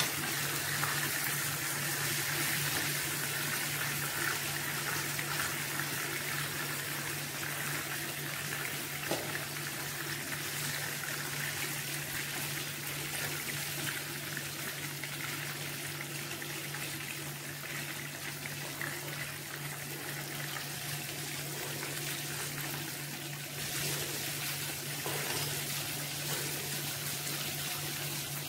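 Battered chicken pieces sizzling as they shallow-fry in hot oil in a nonstick pan, a steady hiss, with an occasional light click of metal tongs and a steady low hum underneath.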